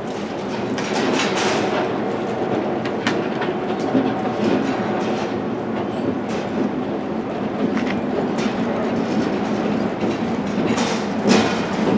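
Freight cars of a CN train rolling along the track, a steady rumble with irregular sharp clicks and clanks of wheels over rail joints.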